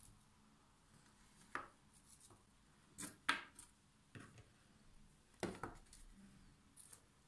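Scattered brief taps and rustles as raw onion slices are laid one by one into a round aluminium tray, fingers and onion touching the thin metal; about five light knocks, the sharpest about three seconds in.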